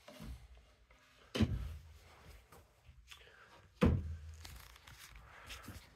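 Two dull thuds about two and a half seconds apart, each with a short low rumble after it, with faint rustling and small ticks between.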